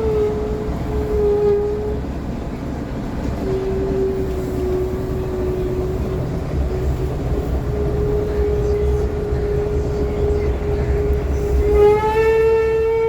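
City bus running with a long, wavering squeal over the low rumble of the vehicle, a sound likened to a whale's song. The squeal breaks off and starts again a few times, and near the end it turns louder and brighter.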